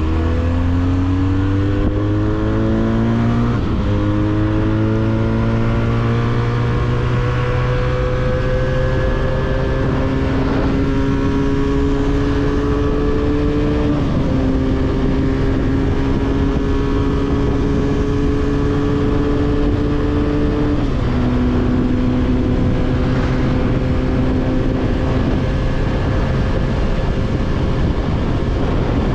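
Benelli 302S 300 cc motorcycle engine with an aftermarket full exhaust, heard on board while riding. The engine pulls through the gears with three upshifts: the pitch climbs in each gear and drops sharply at each shift, then holds fairly steady at cruise.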